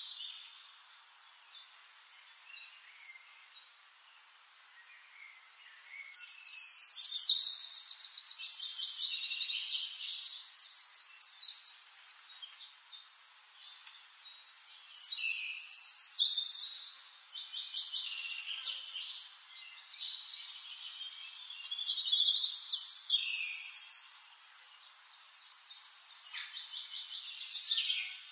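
Songbirds singing in repeated phrases of high, fast trills and chirps, each lasting a few seconds with brief lulls between. The first and loudest phrase starts about six seconds in.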